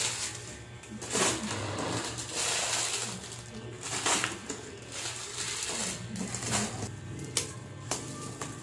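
Plastic-wrapped snack packs rustling in several bursts as they are handled and packed back into a cardboard box, with two sharp clicks near the end.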